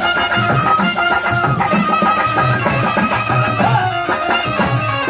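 Traditional Telugu folk devotional music for a bhajana dance: a steady drumbeat under sustained held instrument notes.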